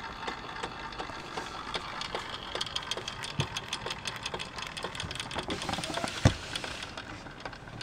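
Märklin 4122/11 vertical live-steam toy engine running: a fast clatter of ticks from its cylinder and running gear over a steady steam hiss, with one louder knock about six seconds in. It is running on the steam left after its burner wick has been blown out.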